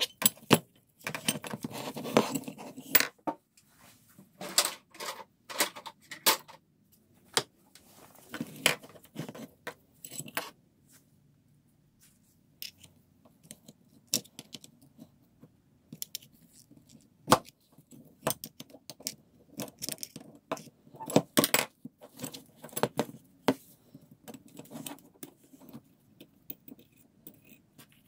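Parts of a rusty cast-iron Sears 3½-inch bench vise being handled and taken apart by hand: irregular metal clinks, knocks and scrapes as the sliding jaw and lead screw are moved and set down and a screwdriver works against the screw. A denser stretch of scraping comes in the first few seconds, and there is a brief lull about halfway through.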